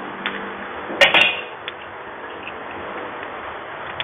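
A steel spoon clinks sharply against kitchenware a few times about a second in, with a few lighter taps around it, over a steady background hiss.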